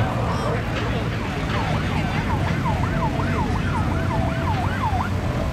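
Emergency vehicle siren in a fast yelp, its pitch sweeping up and down about three times a second, strongest through the second half, over a steady low rumble.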